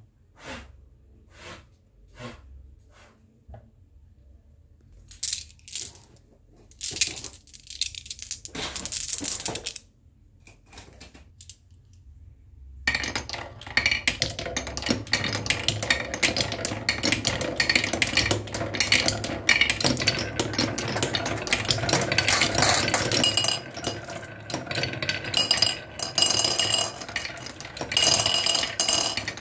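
Scattered knocks and clicks of plastic toy figures being handled and set down on a table, then from about thirteen seconds in a dense, continuous clatter of many glass marbles rolling down a wooden HABA Slope marble run and rattling over the wooden bumps on its tracks.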